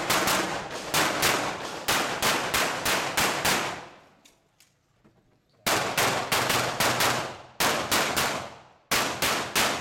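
Rapid pistol shots from a Glock 17 Open-division gun, fired in quick pairs in two long strings. There is a pause of about a second and a half near the middle.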